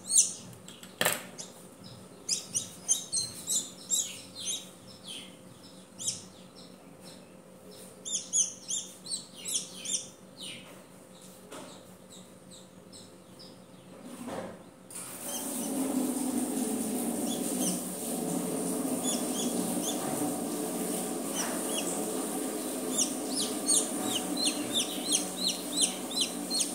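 Newly hatched chick peeping in quick runs of short, high, falling peeps, with a pause of several seconds about halfway. A steady low hum comes in around the middle and runs on beneath the peeps.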